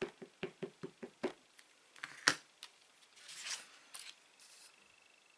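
Clear stamp on an acrylic block tapped repeatedly on an ink pad to ink it, about five quick taps a second, stopping after about a second. Then a single sharp knock and a brief rustle of paper.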